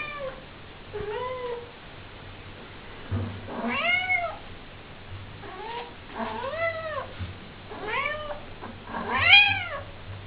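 Female cat in heat calling: a string of about seven drawn-out meows, each rising and then falling in pitch, one to two seconds apart, the loudest near the end.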